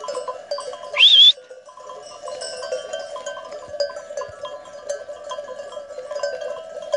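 Bells on a grazing flock of sheep and goats, clinking and ringing steadily. About a second in, a short, loud high-pitched cry rises and wavers.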